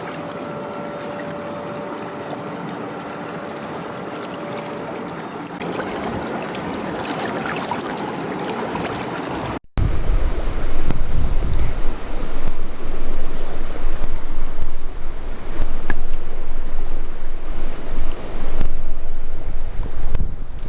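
River water rushing. About ten seconds in, a cut leads to a louder stretch where gusts of wind buffet the microphone over the flow.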